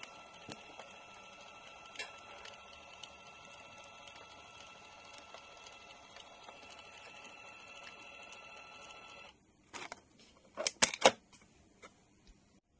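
Brother P-touch 1280 label maker printing a label: its tape-feed motor runs with a steady whine for about nine seconds and then stops suddenly. A few loud, sharp clicks and snaps follow about ten to eleven seconds in.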